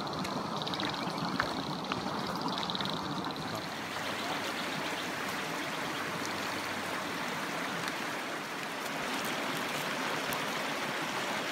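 Creek water running and splashing over rocks, a steady even rush. A high pulsing trill sounds twice in the first few seconds.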